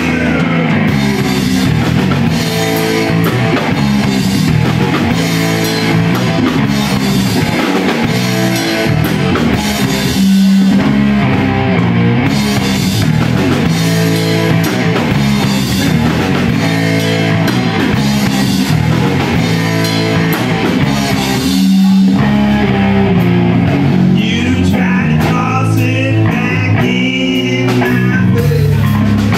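Live heavy stoner-rock band playing a riff: electric guitar and bass guitar over a drum kit.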